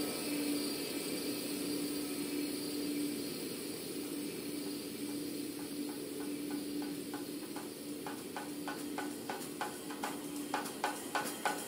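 Electronic music: a hissing synthesizer noise drone with a steady held low note. About halfway through, a fast, even percussive pulse fades in and grows louder.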